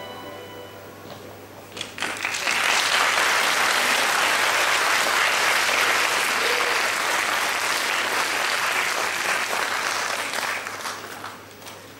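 Audience applauding: the clapping starts about two seconds in, holds steady, and dies away near the end.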